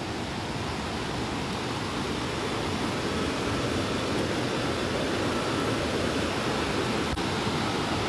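Whitewater river rapids rushing steadily over rocks. The sound grows a little louder over the first few seconds, then holds even.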